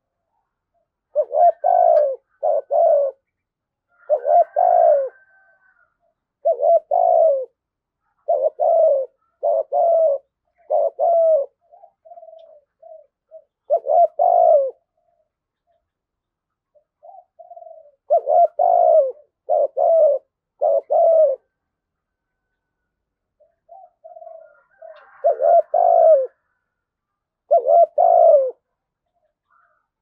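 Spotted dove cooing in repeated phrases of two or three coo notes, some led in by softer short notes, with pauses of a second or more between phrases.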